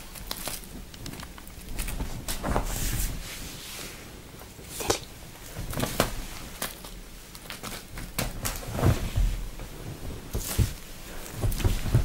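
A cat playing on a fabric-covered sofa: irregular soft thumps, scrabbles and rustles as it pounces on and bats a small paper-wrapped button.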